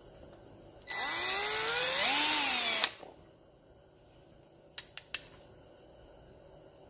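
Cordless drill spinning a brass rifle cartridge case against a hand-held case trimmer for about two seconds. The motor's pitch rises, then dips under load, and it stops abruptly. About two seconds later come three sharp clicks.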